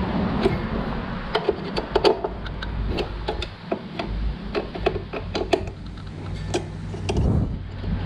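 Irregular clicks and knocks of hard plastic parts being handled and fitted together while the pool robot is reassembled, over a low steady hum.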